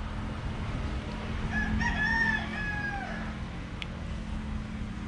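A rooster crowing once, a single long call of nearly two seconds that drops in pitch at the end, over a steady low hum.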